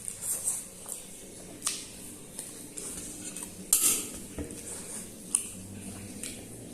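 Short clinks and scrapes of an eating utensil against a dish while Maggi instant noodles are being eaten, a handful of separate strokes with the loudest a little under four seconds in.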